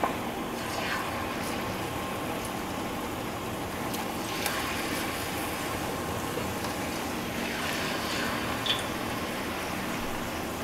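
Tempura-battered fish chunks being deep-fried in hot oil, about 370°F: a steady frying hiss that flares into a louder sizzle as a piece goes in, about a second in, again around the middle, and once more near the end.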